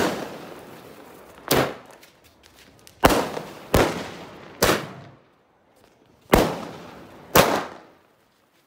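A 60-shot multi-colour sky shooter firework firing its shots one after another: seven sharp bangs spaced unevenly, roughly a second apart, each with a short fading tail.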